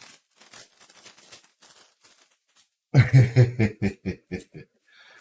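Faint rustling of card packaging. About three seconds in, a loud burst of laughter, a quick run of 'ha' pulses that fades out over a second and a half.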